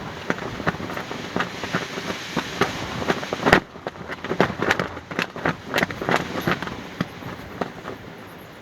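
Fabric flapping in strong wind, snapping with irregular sharp cracks over a steady rush of wind. A loud crack comes about three and a half seconds in, after which the rushing hiss drops.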